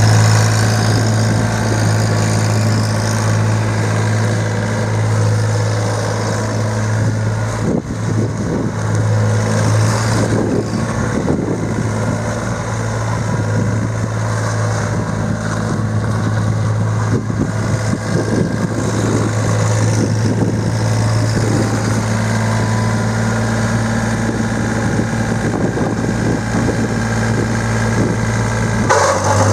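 Yanmar three-cylinder diesel engine of a 2008 John Deere 1445 Series II mower running steadily at a constant speed, its note shifting briefly near the end.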